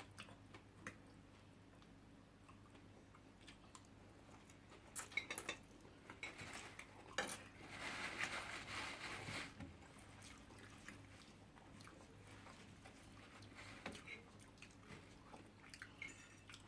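Faint eating sounds: scattered clicks of cutlery against plates and quiet chewing, with a louder scratchy stretch about halfway through.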